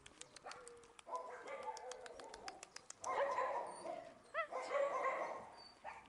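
Dogs barking and whining, louder from about three seconds in, with a short yelp a little after four seconds.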